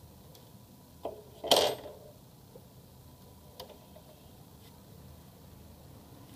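A small metal part clattering once, sharply and briefly, about one and a half seconds in, just after a light click; a few faint clicks of handled metal parts follow.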